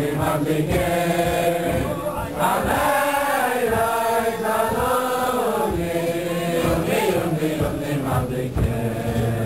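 Men singing a slow melody together in chant style at a Chanukah candle lighting, the tune rising and falling in long held notes.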